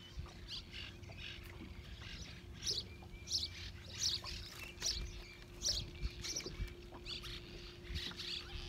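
Small birds chirping over and over, short high calls several times a second, with a faint steady hum underneath.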